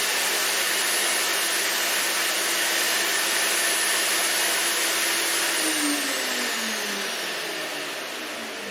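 Earthwise GS70015 electric wood chipper running steadily, then switched off about five and a half seconds in; its whine falls in pitch as the motor and cutter spin down.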